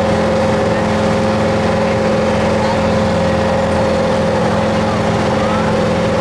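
Motorboat engine running at a steady cruising speed, giving an even, unchanging hum.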